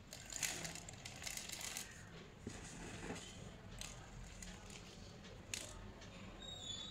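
Slate pencils being crushed into chunks and powder: a quick cluster of cracks and crunches in the first two seconds, then a few single cracks.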